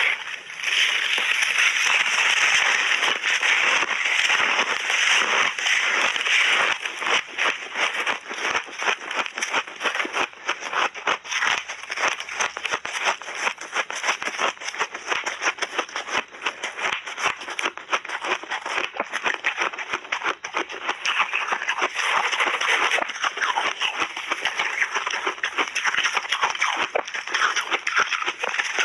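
Close-miked crunching and crackling of frozen layered shaved ice as it is bitten and chewed in big mouthfuls: a continuous run of crisp cracks.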